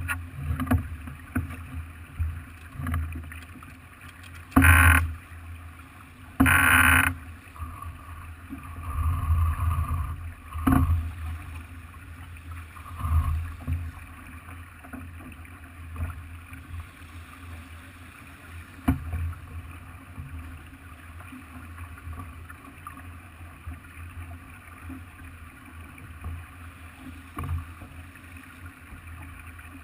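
Sounds aboard a Farr 40 racing sailboat under way: water moving along the hull with a steady low rumble. Two short, loud bursts of noise come about five and seven seconds in, and there are a few sharp knocks later.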